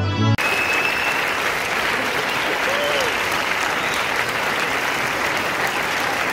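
A large audience in a hall applauding steadily, just after a string-ensemble piece cuts off in the first moment.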